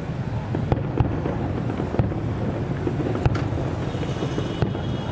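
Aerial fireworks shells bursting in a string of sharp bangs, roughly one every second, over a steady low rumble.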